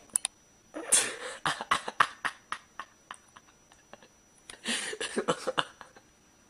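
A person laughing in two breathy bouts, each a run of short bursts that trail off, the second about four and a half seconds in.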